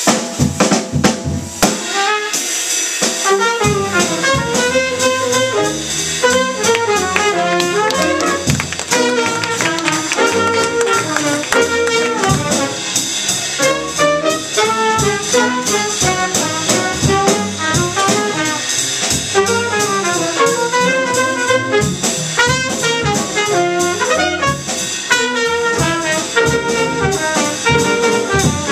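Small jazz combo playing: the drum kit finishes a fill in the first few seconds, then a saxophone plays a running melodic line over piano, upright bass and drums.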